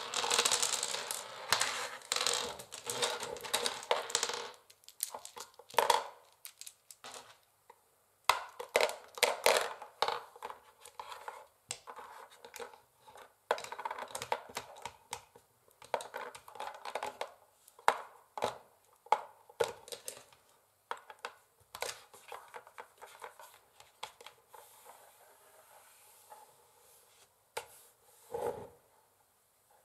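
Long fingernails tapping and scratching on a wooden chessboard: quick irregular runs of sharp clicks mixed with dry scraping, pausing briefly a few times.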